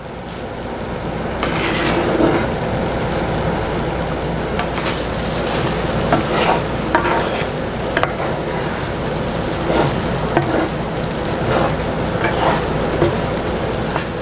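Mushroom, onion and wine cream sauce sizzling in a skillet as it cooks down to thicken, with a spoon scraping and stirring through it now and then. The sizzle swells over the first couple of seconds.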